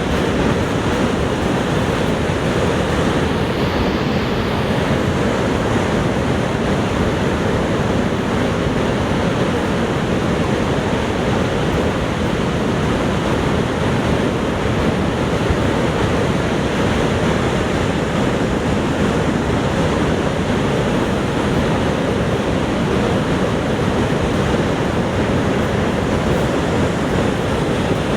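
Niagara Falls' water crashing down, a steady, unbroken roar of falling water.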